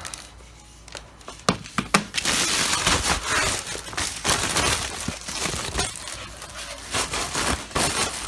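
Unboxing packaging rustling and crinkling while a monitor's stand base is handled and pulled out. A few sharp clicks come about a second in, then steady, irregular rustling.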